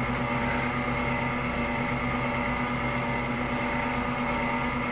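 Steady low hum of room background noise with no change.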